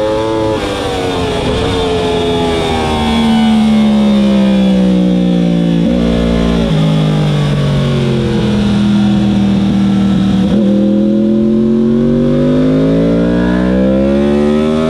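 2015 Yamaha R1's crossplane inline-four engine on a wet track. The engine note drops as the rider shuts off and brakes hard from about 130 mph, with quick downshifts around six seconds in. It then rises steadily as the bike accelerates back out of the corner, over steady wind rush.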